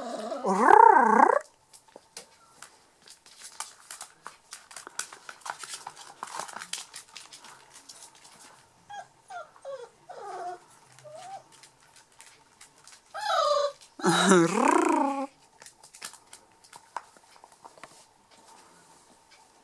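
Six-week-old puppies whining and crying, with wavering high-pitched cries loudest near the start and again about two-thirds through, small squeaky whimpers in between, and light clicking from paws and play throughout.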